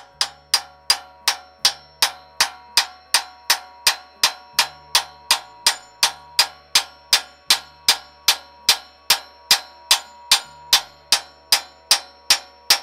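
Hammer blows on a steel pin, about three a second in a steady rhythm, each strike ringing metallically, driving the pivot pin through the loader's hydraulic cylinder mount.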